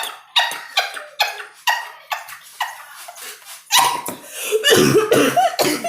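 A quick run of short, breathy sounds, about three a second, then a long, low-pitched burp in the second half, forced out as a contest burp.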